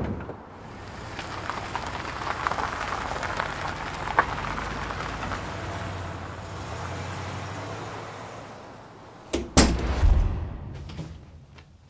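A car running, its engine and road noise swelling and then fading, followed by two sharp thumps near the end like a car door being shut.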